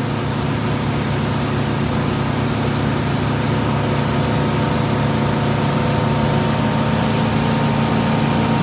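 Wake surf boat's 420-horsepower inboard engine running steadily under load, a low even hum under the rushing hiss of water churning in the weighted-down boat's surf wake.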